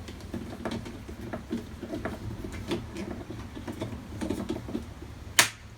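Small clicks and knocks of tools and parts being handled during hands-on work on a motorcycle, over a steady low hum, with one sharp, louder knock near the end.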